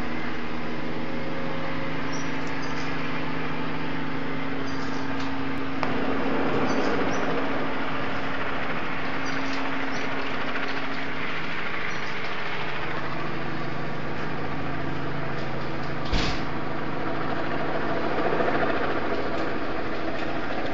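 Helicopter flying overhead: a steady drone of turbine and rotor with a few held tones over it, swelling briefly about six seconds in. One sharp knock sounds late on.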